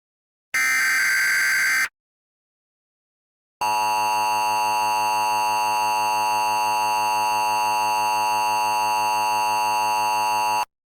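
Emergency Alert System signalling. The last of the three digital SAME header bursts is a short, rapid warbling data chirp lasting about a second and a half; it encodes the alert. After a brief silence comes the long, steady EAS attention tone, which runs about seven seconds and cuts off shortly before the end.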